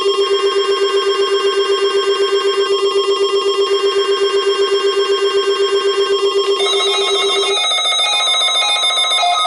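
NOAA Weather Radio alert: the station's steady 1050 Hz warning tone with a weather-radio receiver's alarm beeping over it at about eight pulses a second. About three quarters of the way through, the low beeping stops and a higher, differently pulsed alarm tone carries on.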